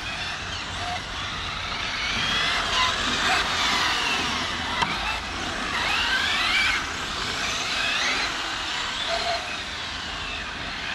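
Brushless electric RC cars running hard, their motor whine rising and falling in pitch as the throttle is worked, over a steady hiss.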